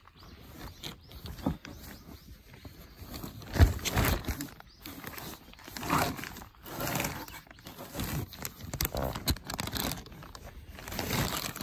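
Irregular rustling and crinkling of futon fabric and plastic sheeting handled close to the microphone, with a thump about a third of the way in.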